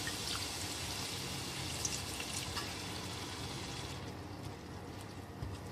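Water just added to a hot wok of chicken and ginger, hissing and bubbling, the hiss dying down about four seconds in. A few light clicks over it.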